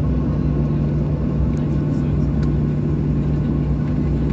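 Steady cabin drone of a Boeing 737-800 in flight: the CFM56-7B jet engines and airflow make a constant low rumble with a steady hum, with no change in pitch or level.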